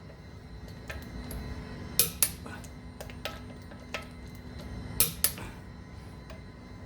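Click-type torque wrench clicking as wheel bolts reach their 130 Nm setting: two sharp double clicks, about 2 and 5 seconds in, with lighter ratchet clicks between.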